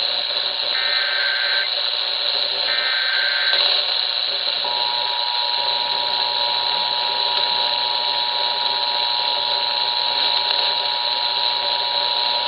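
Emergency Alert System activation over steady radio hiss: the last two of three short bursts of the SAME digital header, each just under a second, then the EAS two-tone attention signal starts about four and a half seconds in and holds steady. This is the standard alert sequence that opens a broadcast EAS test.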